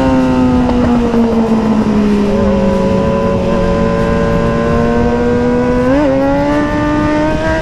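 Kawasaki Z900 inline-four engines running through aftermarket SC Project and Arrow exhausts, two at slightly different pitches at first. Their revs drift slowly, with a short throttle blip about six seconds in.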